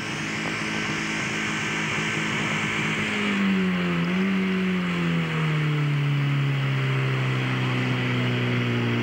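Portable fire-pump engine running at high revs. Its pitch wavers about three to four seconds in, then drops to a lower, steady pitch about five seconds in.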